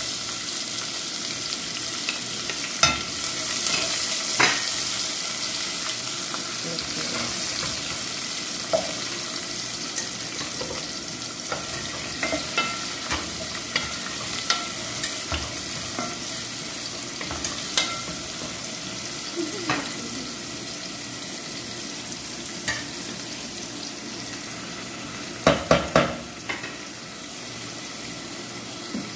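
Sliced onions sizzling in hot oil in an aluminium pot, the sizzle easing slowly, as they are stirred with a wooden spatula, with scattered clicks against the pot. A quick run of loud knocks on the pot comes near the end.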